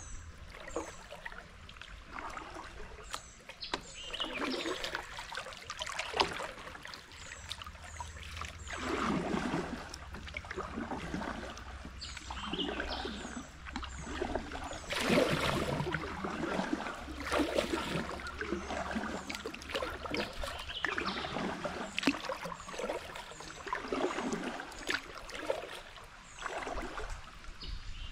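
Kayak paddle strokes in slow river water: splashing and dripping that swell and fade every two to three seconds as the kayak moves upstream.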